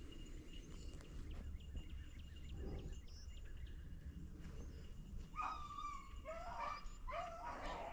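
Rabbit beagles baying faintly, with pitched, wavering calls starting about five seconds in, over a low steady rumble.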